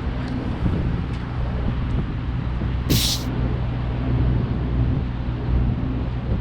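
Steady low engine drone of a vehicle being ridden, with a short hiss about three seconds in.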